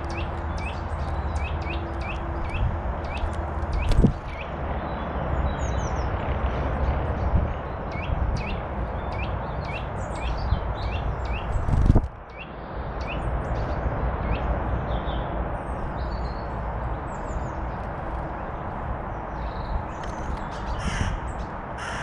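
Wild birds calling: runs of short, sharp, repeated notes, several a second, in the first few seconds and again around ten seconds in, with scattered higher chirps, over steady background noise. Two loud knocks, about four and twelve seconds in.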